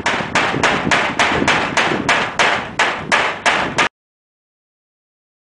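A rapid, even series of sharp knocks, about three a second, that cuts off abruptly about four seconds in, leaving dead silence.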